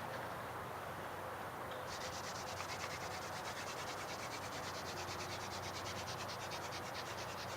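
Yucca hand-drill spindle spun under heavy downward pressure in the hearth board's notch, wood grinding on wood as it builds heat for an ember. From about two seconds in, a fast, steady high trill, typical of an insect, runs behind it.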